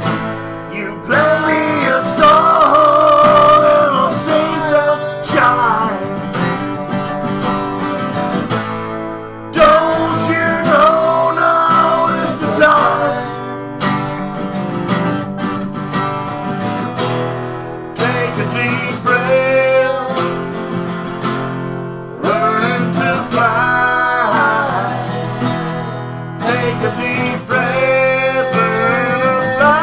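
Acoustic guitars strumming chords in a live Americana-style song, with a wavering melody line held over them in phrases of a few seconds.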